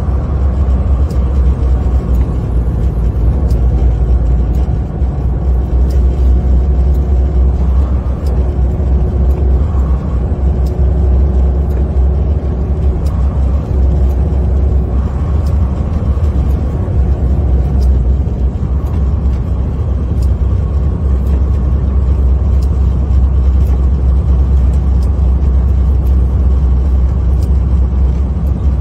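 Semi truck driving on a snow-covered road on tire chains, heard from inside the cab: a steady, loud low rumble of engine and road noise.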